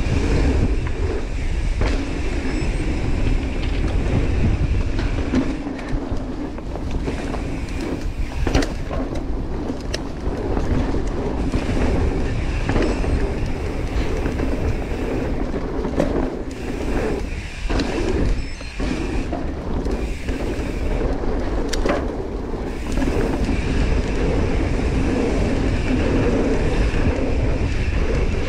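Mountain bike descending a dirt downhill trail at speed: continuous tyre rumble and rattling of the bike over the rough ground, with wind buffeting the microphone and occasional sharp knocks from bumps.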